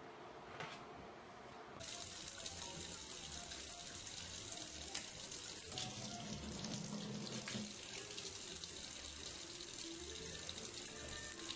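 Kitchen faucet running a thin stream into a stainless-steel sink, starting about two seconds in, with irregular louder splashes as a cat puts its face into the flow.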